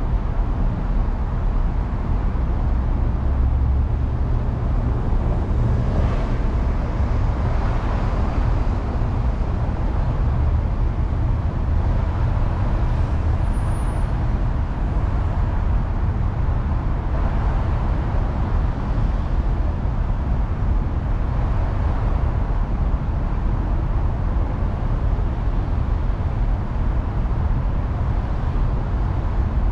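Steady low rumble of idling vehicles in a traffic queue stopped at a red light, with a few faint swells of other traffic passing.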